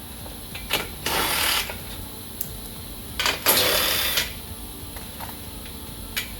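A cordless power tool spinning 15 mm bolts out of a car's rear crash bar in two bursts, a short one about a second in and a longer one past the middle, with a few clicks of the socket and bolts around them.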